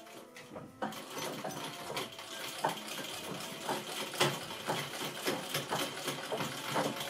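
A 1920s Singer 15K sewing machine driven by its treadle, starting up about a second in and then stitching steadily: a continuous mechanical clatter with a louder knock about twice a second.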